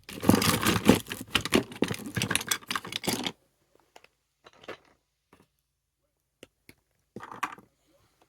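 Fridge magnets and other small ornaments clattering and rustling as a hand rummages through a box of them, a dense rattle for about three seconds. A few light clicks follow, and a short clatter near the end.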